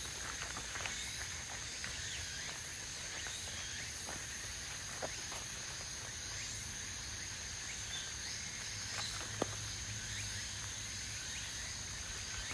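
A steady chorus of cicadas: a continuous high shrill that does not let up. Footsteps crunch on a gravel path now and then underneath it.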